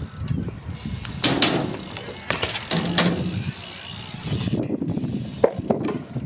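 BMX bike ridden on a concrete park: tyres rolling with a steady low rumble, broken by loud scraping knocks about a second in and again around three seconds, and a few sharp clicks near the end. The G-Sport ratchet hub clicks while coasting.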